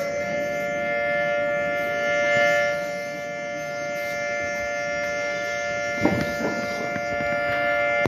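Outdoor tornado warning siren sounding at full pitch, holding a steady two-note chord.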